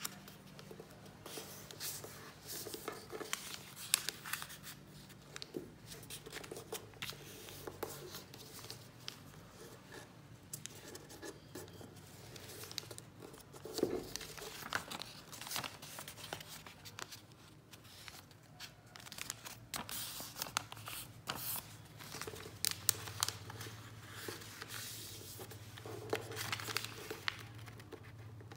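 A sheet of lined notebook paper being folded by hand into a paper airplane: irregular rustling and crinkling, with short crisp crackles as the folds are pressed flat.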